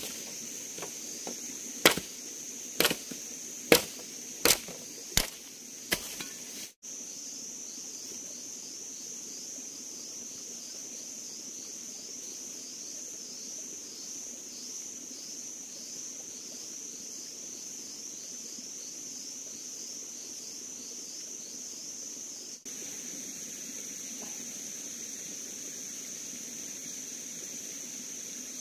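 A machete chopping a thin branch, about seven sharp strokes over the first six seconds. After that, a steady high-pitched chorus of insects with a fast, even pulsing.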